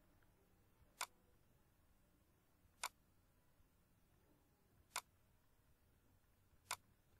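Four single computer mouse clicks a couple of seconds apart, with near silence between.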